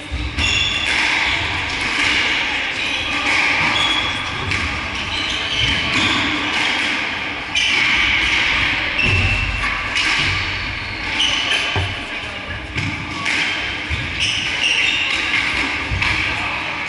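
Squash rally in an enclosed court: the ball thudding off rackets, walls and the wooden floor, with the sharp squeak of court shoes on the floorboards. The hits and squeaks come irregularly, several a second at times.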